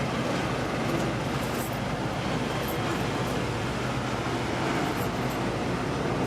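Street traffic noise: a steady hum of passing vehicles.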